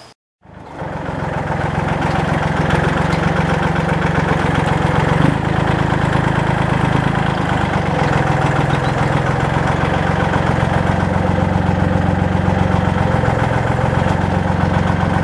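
Tractor engine running steadily at idle, starting abruptly just under a second in.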